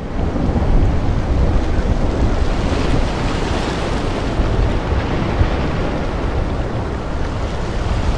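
Loud, steady rushing noise with a deep rumble, like surf or wind, swelling up in the first second and then holding even, with no tone or beat in it.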